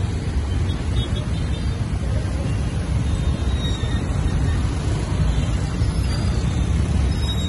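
Dense street traffic, mostly motorbikes and cars: a steady mixed rumble of many small engines with no single vehicle standing out.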